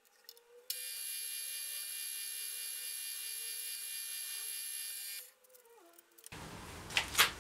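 Milling machine spindle driving a twist drill into a metal plate: a steady high whine that stops about five seconds in, the motor's lower hum dropping in pitch as it winds down. Near the end a louder rough noise with a few sharp metallic clinks.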